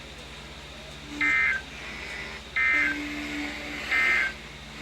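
Three short bursts of Emergency Alert System SAME digital data, the buzzy modem-like end-of-message signal, each about a third of a second long and roughly a second and a half apart. They mark the close of the severe thunderstorm warning broadcast.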